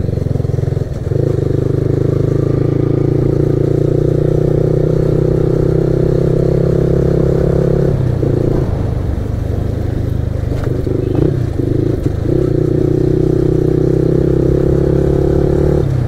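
Yamaha R15M's 155 cc single-cylinder engine running under steady throttle while riding a rough dirt road. The rider eases off for a few seconds around the middle, with a few light knocks, then it holds steady again.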